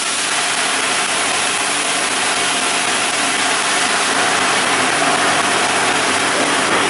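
PX sherry hitting a hot stainless-steel frying pan, sizzling and boiling hard as it deglazes the pan. A steady, loud hiss.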